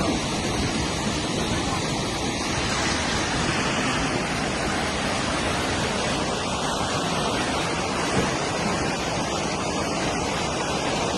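Floodwater rushing: a steady, even noise of flowing water.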